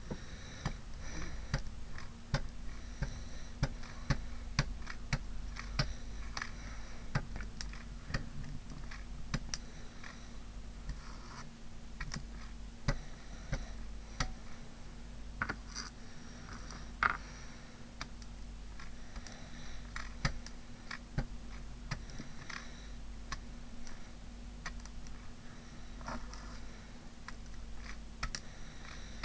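Irregular light tapping and scratching as white paint is dabbed onto a small metal embellishment to knock back its bronze finish, with a few louder taps about two-thirds of the way through, over a steady low hum.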